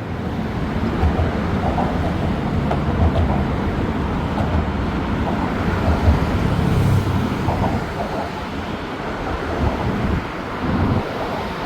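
Steady low rumble of a moving vehicle, with no clear single events.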